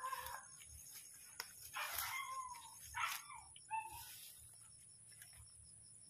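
Short animal calls, about four in the first four seconds, each briefly bending up and down in pitch, then quieter over a steady high hiss.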